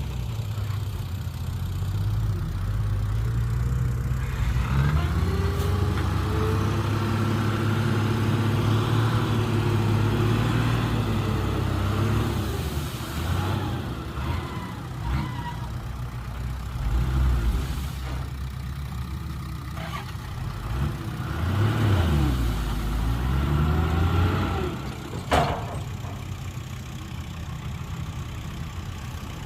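Heavy diesel earthmoving machinery engines running, with the engine note rising and falling as they rev under load. A single sharp knock comes near the end.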